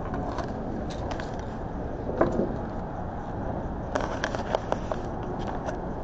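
Scattered sharp clicks and knocks from hands handling things at a table, the loudest about two seconds in and a quick cluster near the end, over a steady low background hum.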